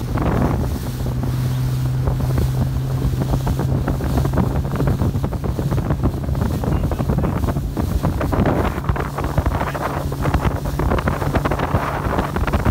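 Wind buffeting the microphone and water splashing from a moving motorboat, over the steady low drone of the boat's engine running.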